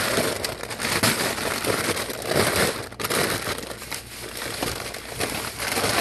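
Plastic produce bags of kale, spinach and broccoli crinkling and rustling as they are handled and stood upright, with a brief lull about halfway through.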